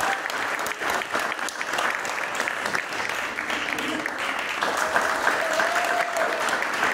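Crowd clapping and cheering steadily, with one long high cheer held over it about five seconds in.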